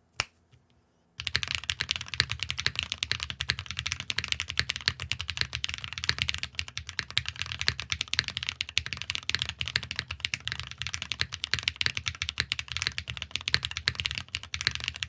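Fast, continuous typing on a mechanical keyboard fitted with KTechs S2v2 tactile switches, lubed with 205g0, starting after a couple of clicks about a second in.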